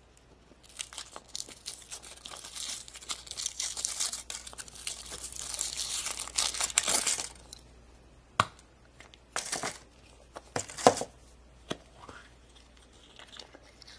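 Foil wrapper crinkling and tearing as it is peeled off a chocolate surprise egg for several seconds. This is followed by a few separate sharp clicks and snaps as the chocolate shell is split and the plastic toy capsule inside is handled and pried open.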